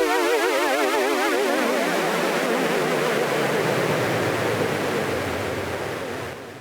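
Electronic music: a synthesizer note with a fast wobbling pitch over a hissing wash of noise, fading out and ending near the end.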